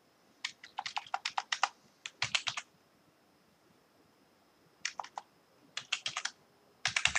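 Computer keyboard keystrokes typing a short password, in several quick bursts with pauses between them.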